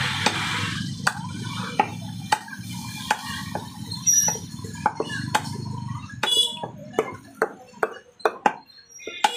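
Cleaver chopping lamb intestine on a wooden log block: a run of sharp knocks, roughly two a second, over a low steady rumble that fades about six seconds in.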